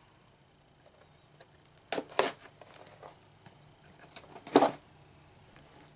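Cardboard shipping box being cut open by hand with a small blade tool. There are two short rips about two seconds in, faint scratching, and a louder short rip about four and a half seconds in.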